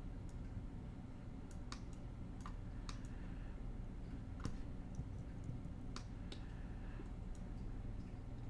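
Computer mouse and keyboard clicks, sharp and scattered at irregular intervals, over a low steady hum.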